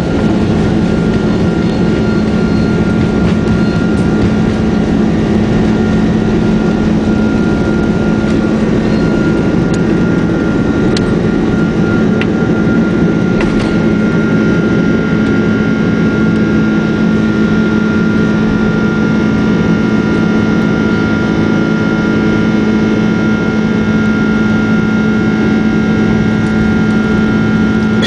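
Jet airliner's engines at takeoff thrust heard from inside the cabin: a loud, steady roar with a low hum and a thin whining tone above it, through the takeoff roll and liftoff. A few faint clicks come midway.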